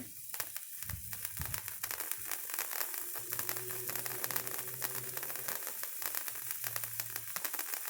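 A handheld Patriot stick firework burning, fizzing steadily as it throws sparks, with a continuous run of quick crackles.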